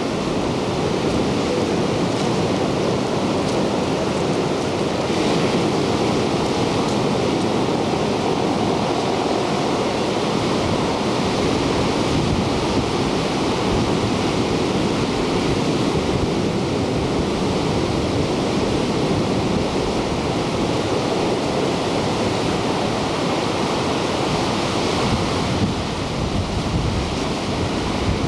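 Heavy ocean surf breaking on black lava rocks, a continuous rushing wash of waves.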